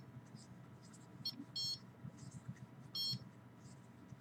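Handheld RF/EMF detector giving high-pitched electronic beeps at irregular moments: a short one, then two slightly longer ones, each sounding as the meter picks up a reading.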